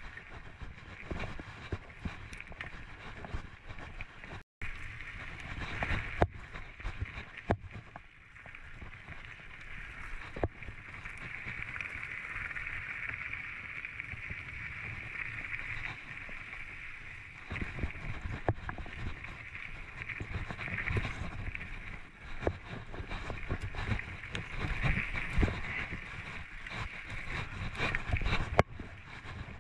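Giant Anthem mountain bike riding a dirt trail: steady tyre and wind noise, with frequent knocks and rattles from the bike over bumps and roots.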